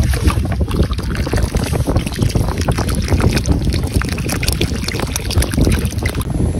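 Water poured from a plastic bottle into a crab burrow in wet sand, splashing and bubbling in the hole, with wind rumbling on the microphone.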